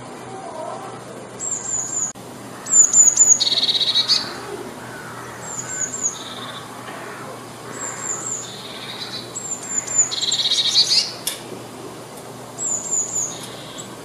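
Eurasian blue tit singing: short phrases of two or three high, thin notes followed by a lower trill, repeated about six times with short gaps.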